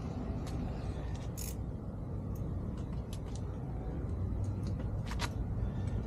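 A few light clicks and taps of small brake parts and tools being handled, over a steady low rumble. There is a close pair of clicks about five seconds in.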